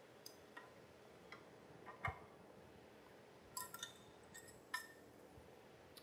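Faint, scattered metallic clicks and clinks as a small sheet-metal cover over the sawmill's cam follower bearings and its fastener are handled and removed. There is one sharper click about two seconds in and a short run of clicks a little after halfway.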